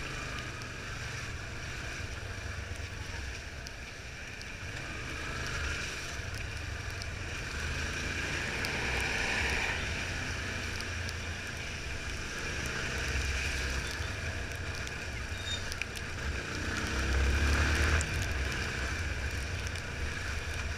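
Yamaha Fazer 250's single-cylinder four-stroke engine running as the motorcycle rides through traffic on a wet road, under a steady rush of wind and road noise. The engine picks up briefly about halfway through and again near the end.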